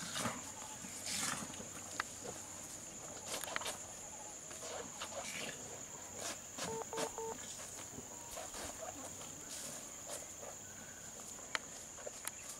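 Steady high-pitched drone of insects, with scattered light clicks and rustles and a brief pair of beeps near the middle.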